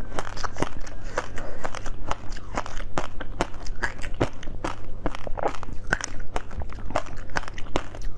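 Close crunching and chewing of a bitten-off piece of frozen fruit ice pop, a run of crisp crunches a few times a second.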